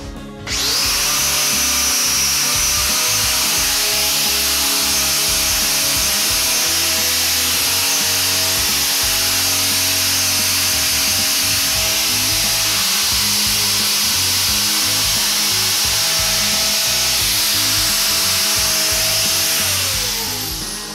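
Angle grinder with a flap disc sanding the end of a hickory axe handle and its wedge at the top of the head's eye. It spins up with a rising whine about half a second in, runs steadily, and winds down with a falling whine near the end.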